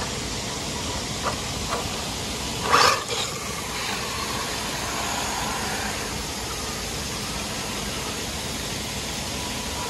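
Steady hiss of a fountain's falling water, with a sudden loud splash about three seconds in as a radio-controlled Baja Bug drives through the shallow pool.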